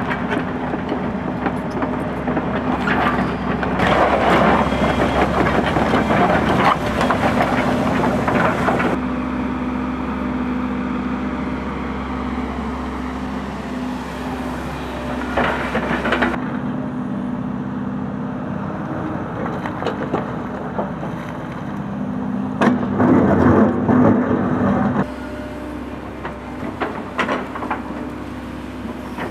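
Hidromek HMK 140 LC crawler excavator at work: its diesel engine running steadily under load, with repeated loud bursts of scraping and crunching as the bucket digs into soil, rock and brush. The background changes abruptly several times.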